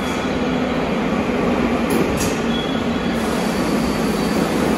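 Train running through an underground station on steel rails: a steady, loud rolling rumble with a faint high wheel squeal that comes and goes.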